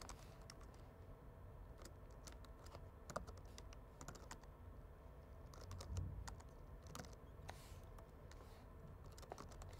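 Faint typing on a computer keyboard: irregular single key clicks over a low steady hum.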